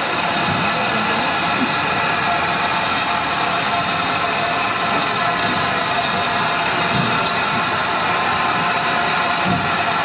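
King Arthur class 4-6-0 steam locomotive No. 777, creeping slowly onto a turntable, giving off a steady hiss of escaping steam with several steady tones in it.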